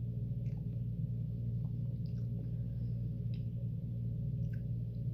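Steady low hum made of several held tones, unchanged throughout, with faint small clicks and smacks of a man chewing a mouthful of food.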